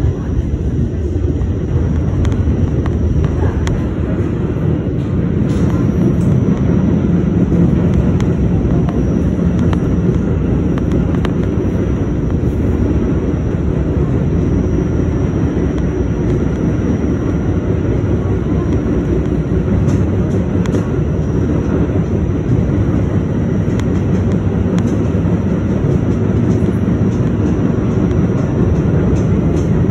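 New York City subway train running, heard from inside the front car: a steady low rumble of wheels and motors, with a few faint clicks now and then.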